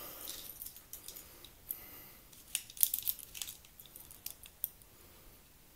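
Scattered light metallic clicks and scrapes of calipers being handled and closed on a steel fishing dart to measure its shaft and head diameters.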